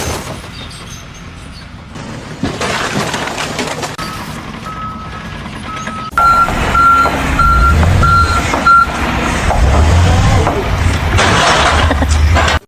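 Reversing alarm beeping about twice a second over the low running of a heavy vehicle's engine, with a burst of noise near the end.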